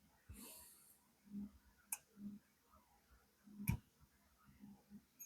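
Faint handling of a ratchet being taken apart, working at its retaining clip: a brief scrape under a second in, then two sharp metal clicks about two and nearly four seconds in, with a few soft knocks.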